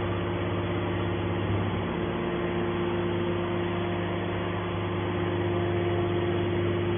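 Automatic hydraulic scrap metal baler running steadily: its electric motor and hydraulic pump give a continuous hum with a steady whine over it. The lowest part of the hum eases about two seconds in.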